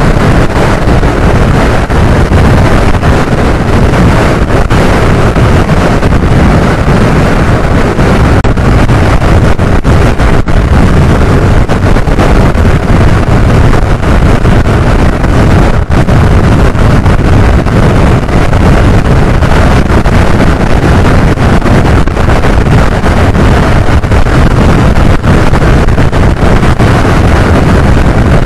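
Loud, steady wind buffeting on the microphone of a camera riding on a Suzuki scooter at highway speed, about 85 km/h, with road and motor noise blended in underneath.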